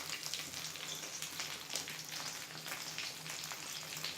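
Stuffed capsicums sizzling in a little oil in a non-stick pan over low heat, a steady soft crackle.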